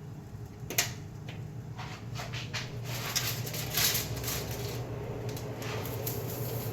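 Kitchen handling noises as toasting bread is opened up and flipped: a sharp click about a second in, then a run of light clattering and scraping, over a steady low hum.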